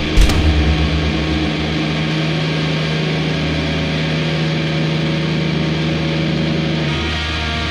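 Death/doom metal: heavily distorted guitars and bass holding a dense, sustained low drone, with one sharp hit just after the start. The low notes shift near the end.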